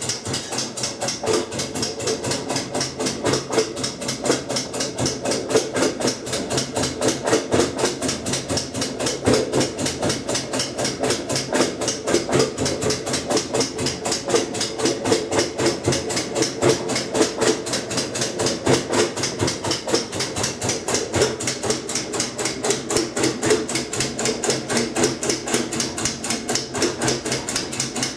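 Kenmore 90 Series top-load washer (model 110.26902691) clicking rapidly and evenly, several clicks a second, over the low hum of the machine running in its rinse cycle. It is a fault the owner could not trace to any broken or loose part; the house lights blink along with it.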